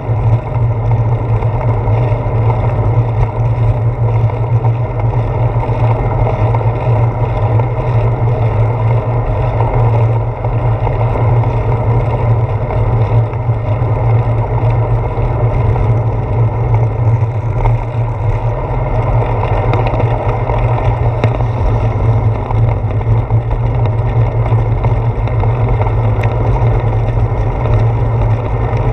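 Steady low rumble and rush of wind and road vibration picked up by a handlebar-mounted GoPro Hero 4 on a bicycle rolling along a paved trail, with no letup.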